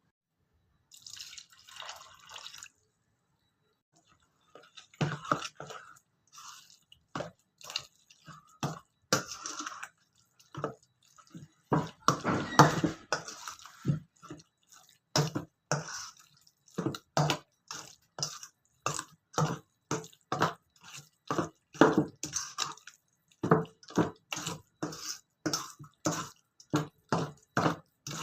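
Hands kneading and squeezing wet, sticky fish-and-tapioca pempek dough: a run of short wet squelches, about one or two a second, with a longer squish near the middle.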